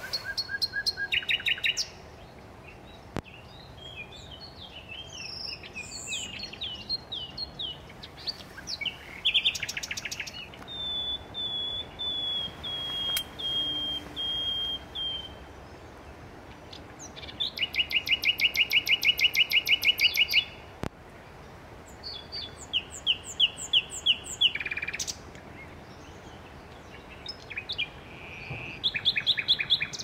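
Common nightingale singing: varied phrases with short pauses between them, including a run of clear whistled notes and quick repeated chirps. A fast, loud rattling trill about two-thirds of the way through is the loudest phrase.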